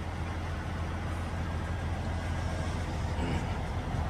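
Kenworth semi-trailer truck's diesel engine idling with a steady low drone.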